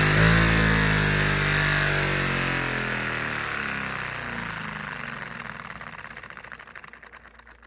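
LEGO vacuum engine and the vacuum cleaner that drives it winding down after max throttle, falling steadily in pitch and fading, the piston's clatter slowing into separate ticks near the end.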